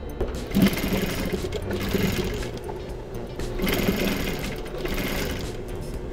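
Gemsy industrial sewing machine stitching a pocket onto layered denim in two runs of about two seconds each, with a short stop between them.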